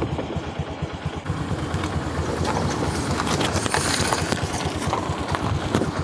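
Motorcycle engine running at low revs, a rapid, even low pulsing over a steady hiss.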